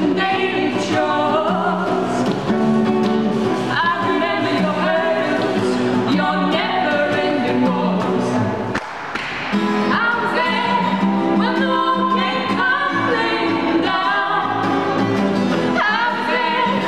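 Live folk song: two women singing together in harmony over a strummed acoustic guitar, with a brief break in the singing about halfway through.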